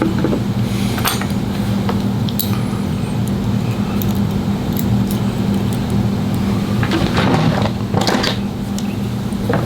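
A steady motor hum with scattered small metallic clicks and scrapes as the parts of an A5 clipper blade (steel comb, ceramic cutter, spring) are fitted back together by hand; the busiest handling comes about seven to eight seconds in.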